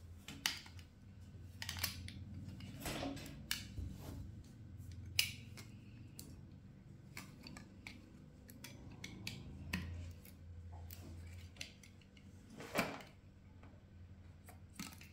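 Utility knife blade cutting and scraping around the plastic hull of a spent 12-gauge shotgun shell, trimming it flush with the brass head: faint, irregular scraping and small clicks, with a few sharper clicks scattered through.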